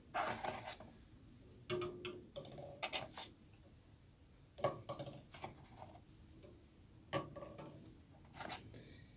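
Eggs lifted one at a time from a cardboard carton and set into a stainless steel saucepan of water: several short, quiet groups of soft knocks and clicks as each egg meets the water and the pan's bottom, with pauses between them.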